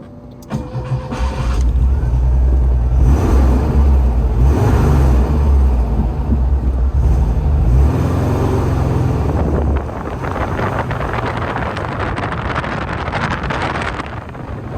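Wind buffeting the microphone in a moving car, with the car's road noise beneath it. A heavy low rumble starts about half a second in and drops away about ten seconds in, leaving a lighter rushing hiss.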